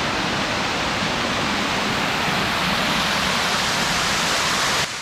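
Steady rushing of a waterfall, cutting off suddenly near the end.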